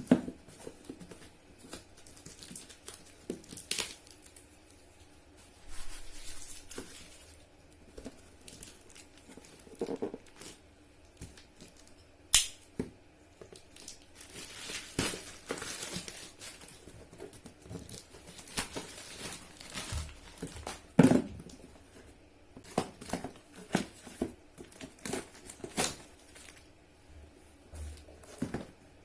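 Packaging being opened and handled by hand: irregular crinkling and tearing with scattered sharp clicks.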